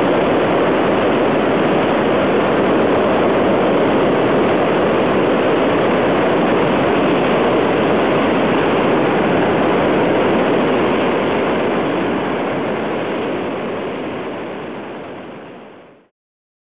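South Esk River floodwater roaring down Cataract Gorge: a steady, loud rush of white water. It fades away over the last few seconds to silence.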